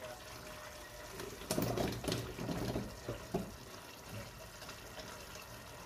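Minced meat bubbling and sizzling in a pot, with potato cubes dropped in and a wooden spoon stirring. There is a cluster of louder knocks and splashes between about one and a half and three and a half seconds in.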